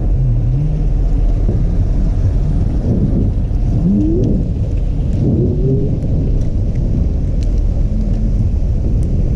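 Wind buffeting the action camera's microphone while cycling through a snowstorm: a loud, steady low rumble, with faint voices partway through.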